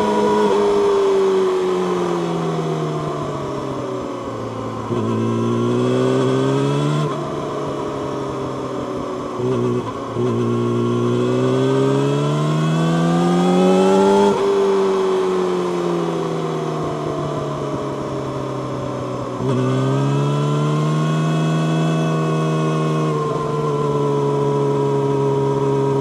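Yamaha YZF-R6's inline-four engine through an Akrapovic megaphone slip-on exhaust, heard from the rider's seat while riding. The pitch falls as the throttle is rolled off and climbs again as the rider accelerates, about five, ten and twenty seconds in. It settles to a steady cruise near the end.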